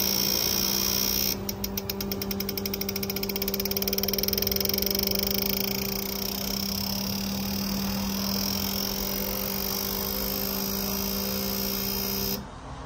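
Steady mechanical hum holding a constant low tone, with a rapid, even ticking from about a second in until about halfway through; it cuts off sharply near the end.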